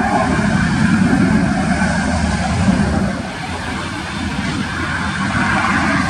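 Jet engines of a Boeing 737 airliner on the ground, a steady rushing noise, mixed with wind buffeting the microphone.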